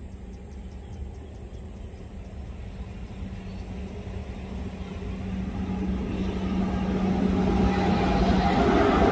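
Diesel train approaching and growing steadily louder: a low engine hum with a rising rumble and rush of noise as it draws near.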